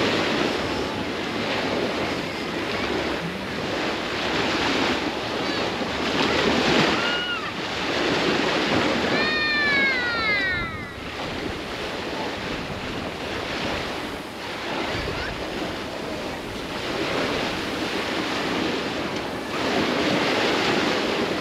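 Sea surf breaking on a beach, the wash rising and falling every few seconds. A few short high calls cut through it, the longest one falling in pitch about ten seconds in.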